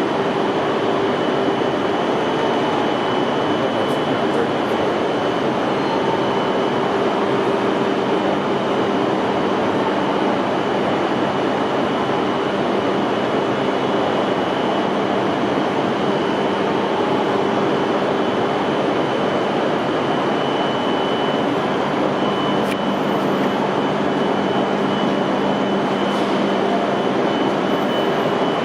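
E5 series Shinkansen train at a station platform, giving off a steady hum and rush of noise with a constant thin high whine over it.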